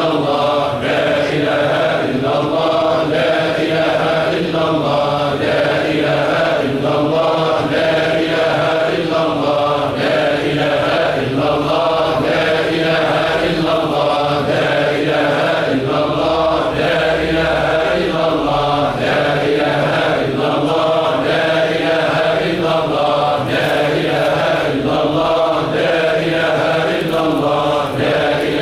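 A large group of men chanting Sufi dhikr in unison, a short phrase repeated about every two seconds in a steady, unbroken rhythm.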